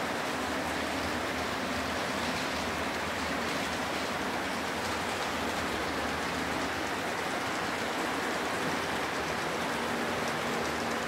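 Model freight trains running: a steady rushing of wheels on the rails with a faint, even hum from the locomotives' motors.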